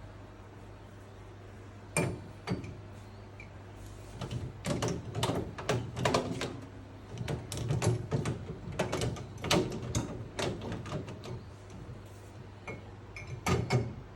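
Dishes knocking and clattering against each other and the wire rack as they are loaded into a dishwasher, in irregular clusters of sharp clinks over a steady low hum.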